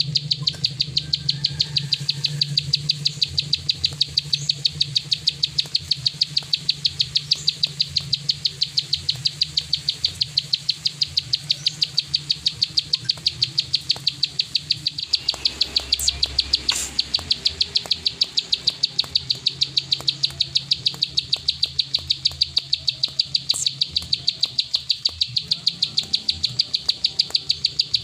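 Plain prinia (prenjak sawah) giving its rapid clicking 'klik' call: a steady, even string of short, high-pitched clicks at about four a second, with a faint low hum underneath.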